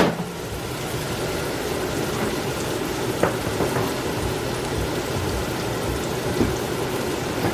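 Onions and mushrooms frying steadily in butter in a pan on medium-high heat, a continuous sizzle. A sharp click sounds right at the start, with a couple of faint knocks later.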